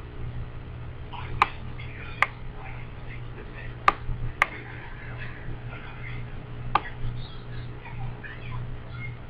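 Computer mouse clicking five times at irregular intervals while an on-screen overlay is dragged and resized, over a steady low electrical hum.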